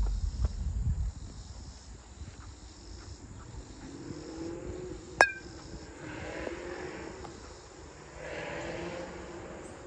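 A baseball smacking into a leather glove close by, one sharp pop about five seconds in, over wind rumble at the start and crickets chirping in the background.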